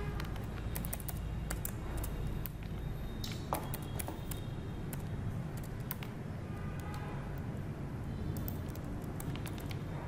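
Computer keyboard typing: irregular, scattered key clicks over a steady low background hum.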